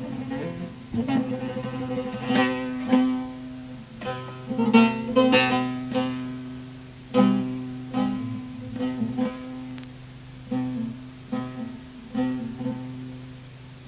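Solo Turkish long-necked saz played in a free instrumental introduction (açış): a run of single plucked notes ringing over a steady low drone.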